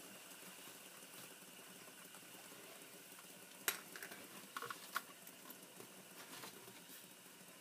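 Two plastic fidget spinners whirring faintly on their ball bearings as they slow down on a tabletop, with a few sharp clicks about four to five seconds in.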